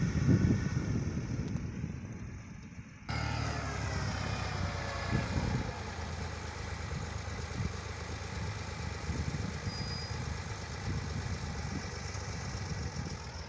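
Engines of construction vehicles running on an earthwork site. About three seconds in, the sound cuts abruptly to a different engine that runs steadily.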